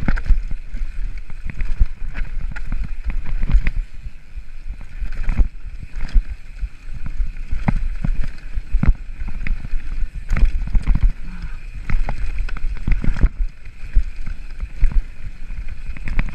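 Mountain bike riding fast down a stony trail: a constant rumble of tyres over rocks and gravel, with wind buffeting the microphone and frequent sharp clacks and knocks as the bike hits stones.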